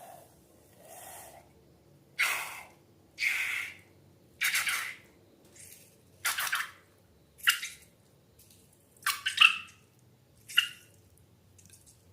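Slime squelching wetly: a string of about eight short squishes, irregularly spaced about a second apart.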